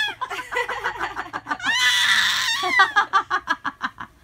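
A baby squealing and giggling: a run of quick giggles, a long high-pitched squeal about two seconds in, then more rapid giggles that die away near the end.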